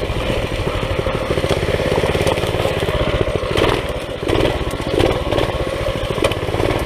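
Minibike's small single-cylinder engine running under throttle as it is ridden over rough ground, its firing pulses steady, with a few brief surges and brush swishing against the bike about halfway through.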